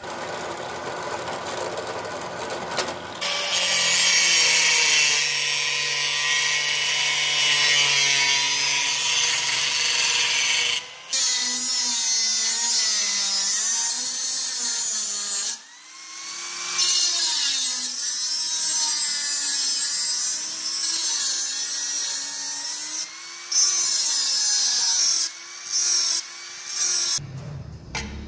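An electric drill press boring through a thin steel plate, then, after an abrupt break about 11 seconds in, an angle grinder grinding the steel piece. The grinder's motor whine dips and recovers in pitch under load, and it is broken by several sudden cuts.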